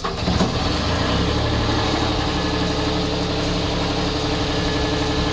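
JLG 460SJ telescopic boom lift's diesel engine, just started, idling steadily.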